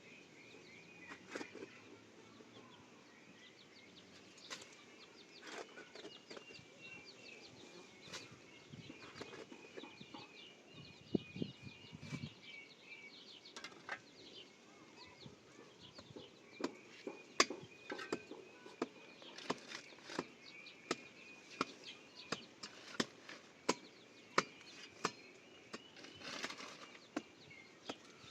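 Small birds chirping and twittering, with sharp knocks that come now and then at first and then settle, about halfway through, into a steady beat of roughly one and a half strikes a second, like a tool chopping.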